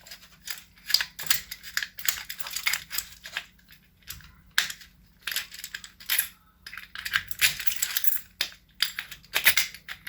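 Irregular small metallic clicks and clinks of door lock parts being handled and fitted back together.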